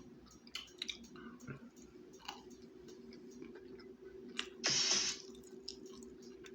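A person chewing hot chicken close to the microphone, with wet mouth clicks and smacks. A short, louder burst of noise comes a little under five seconds in, and a faint steady hum runs underneath.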